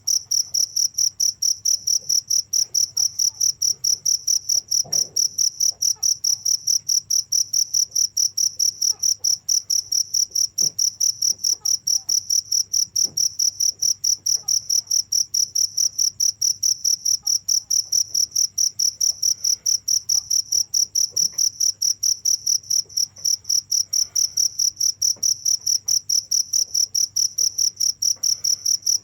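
Cricket chirping steadily, a high-pitched pulse repeated several times a second without a break.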